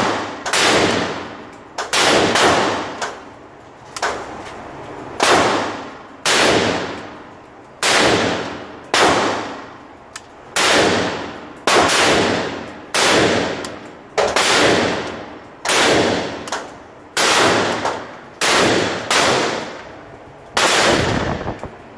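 Romanian "G" kit AK-47 rifle in 7.62×39 fired semi-automatically: a steady string of single shots, about one every second or so, each ringing off in the reverberant indoor range.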